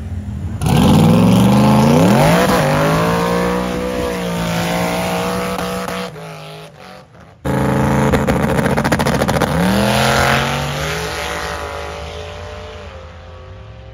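Pickup truck engine revving hard with the tyres spinning in a smoky burnout, its pitch sweeping up; it breaks off about six seconds in, then revs up again as the truck pulls away down the drag strip, the sound fading into the distance near the end.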